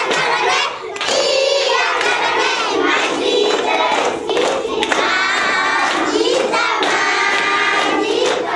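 A group of schoolchildren singing loudly together, with hand claps breaking in here and there.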